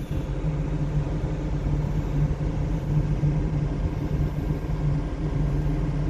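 Steady low hum and rumble of a cargo ship's engine and machinery, heard from on board.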